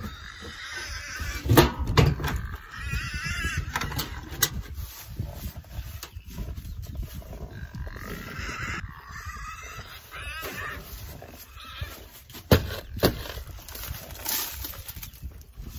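Several hard knocks of rubber rabbit bowls being smashed against the barn wall and thrown down to break the frozen water out, a few about two seconds in and another pair near the end. Between them an animal calls twice, each call a wavering, drawn-out cry.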